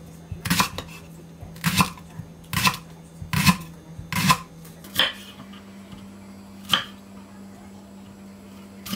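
Chef's knife slicing through a thick leek onto a wooden cutting board: sharp knocks of the blade on the board, about one a second for the first five seconds, then two more spaced farther apart.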